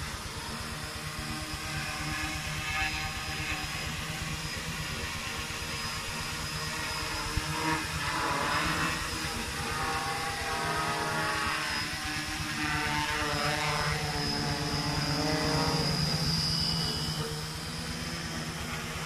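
Homemade F450 quadcopter's four brushless motors and propellers buzzing in flight, the pitch rising and falling as the throttle changes.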